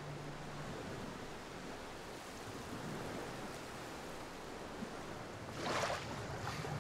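Waves lapping on a shore: a steady soft wash of surf, with a louder wash about five and a half seconds in.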